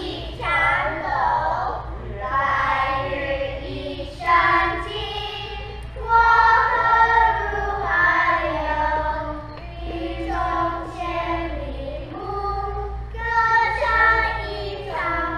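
A group of young children singing a classical Chinese poem in unison, line by line with short breaks between the phrases.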